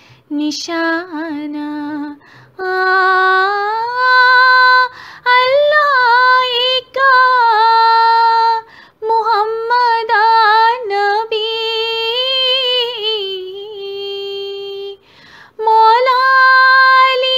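A woman singing a devotional kalam solo and unaccompanied, in long held, lightly ornamented notes, phrase by phrase with short breaks for breath. The words of the line '…sach su tazgi nishan' are sung near the start.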